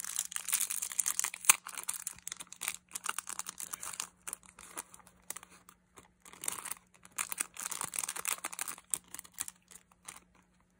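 Plastic and paper packaging of a press-on nail kit being unwrapped and handled, making irregular crinkling and crackling with small clicks. It eases off briefly about halfway through and stops shortly before the end.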